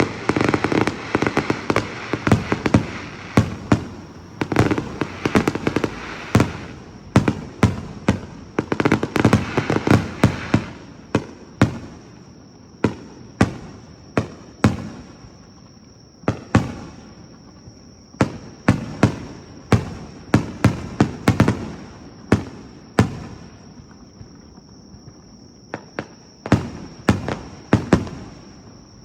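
Star mine fireworks: rapid volleys of sharp shell bursts and crackling reports in dense clusters, easing briefly a little past three-quarters of the way through before a fresh volley near the end.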